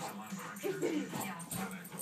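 Excited puppy giving a short whine a little over half a second in while chasing a laser dot, over a steady low hum.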